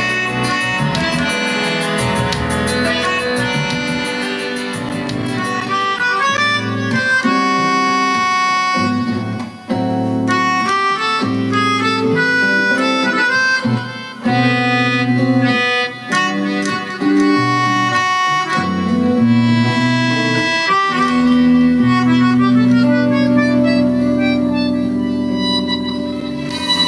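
Melodica playing a melody of held notes over an accompaniment with a bass line. Light rapid percussion ticks sound in the first few seconds.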